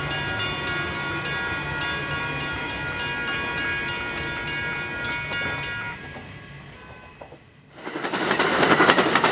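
Railroad sounds: a steady ringing of several tones with regular strikes, about four a second, fades away about six seconds in. After a brief lull, the loud rush and rail noise of a passing train starts abruptly near the end.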